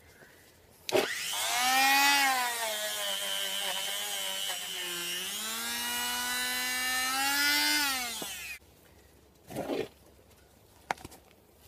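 Handheld rotary power tool scrubbing surface rust off the face of a steel wheel hub. The motor whine starts abruptly about a second in, dips in pitch midway and rises again, then winds down and stops after about seven seconds. A brief second burst follows shortly after.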